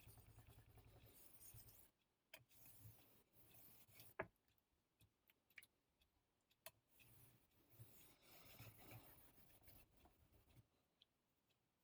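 Yanagiba knife blade being rubbed back and forth on a wet 3000-grit whetstone, faint. A quick, even run of strokes fills the first two seconds. After that come slower, lighter strokes with a few small clicks, the sharpest about four seconds in.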